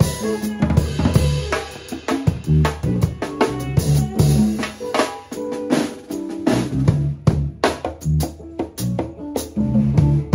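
Live improvised funk band playing, with the drum kit loudest: kick, snare and cymbals driving a groove over a moving bass line.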